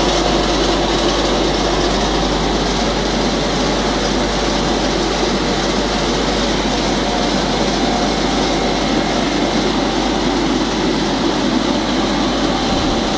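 Puffed-snack production machinery running steadily: a loud, even mechanical noise from the extruder line and its motors, with a constant high whine.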